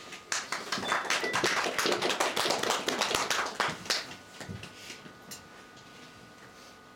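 Audience applauding for about four seconds, then dying away to a few scattered claps.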